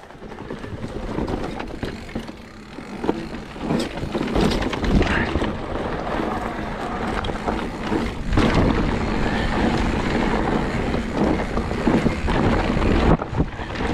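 Mountain bike riding down a rough trail: wind rushing over the microphone, tyres on dirt, and a steady run of knocks and rattles from the bike over bumps.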